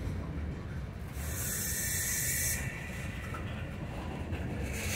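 Covered hopper cars rolling slowly past on the rails with a steady low rumble. About a second in, a loud hiss of air lasts about a second and a half, and another begins near the end.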